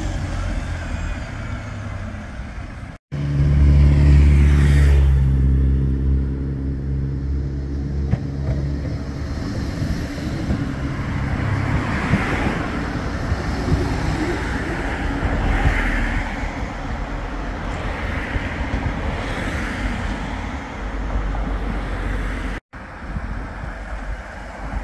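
Street traffic: a single-deck bus's diesel engine pulling away, then a loud low engine rumble starting abruptly about three seconds in. A Bombardier Flexity 2 tram then runs past close by, with a rolling noise that swells twice.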